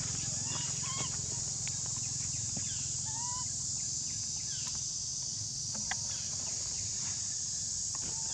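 Steady high-pitched insect drone, like cicadas or crickets in the forest. Scattered short chirping calls and a few sharp clicks sound over it.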